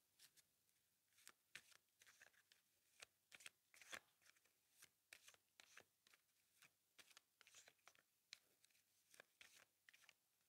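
Tarot deck shuffled by hand: an irregular run of soft card flicks and rustles, faint.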